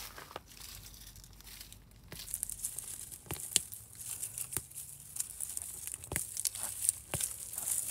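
Rustling, crunching footsteps, louder from about two seconds in, with irregular sharp clicks.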